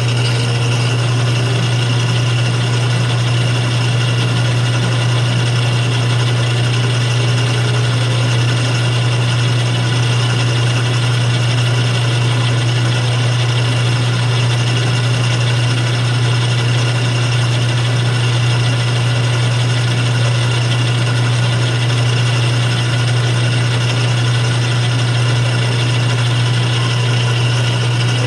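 Atlas 6 lathe running under power: a steady, unbroken motor hum with mechanical noise from the drive.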